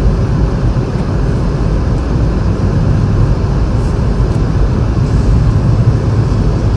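Car cabin noise while driving on a snowy, slippery road: a steady low rumble of tyres and engine.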